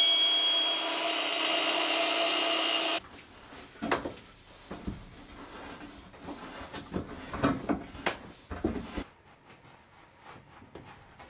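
A loud, steady electronic tone with overtones cuts off sharply about three seconds in. It is followed by quieter, irregular scraping and rubbing with scattered sharp knocks: hand-tool work on rigid board, which fades to faint ticks near the end.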